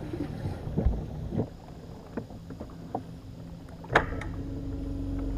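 Knocks and thumps on a fibreglass bass boat as someone moves about on it, then a sharp knock about four seconds in, after which a small electric motor on the boat starts a steady hum.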